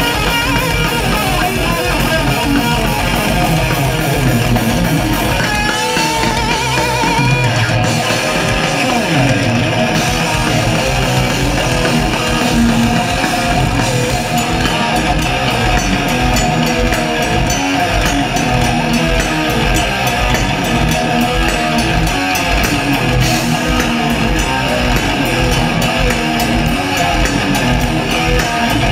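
Thrash metal band playing live and loud: heavily distorted electric guitars and bass over fast, dense drumming.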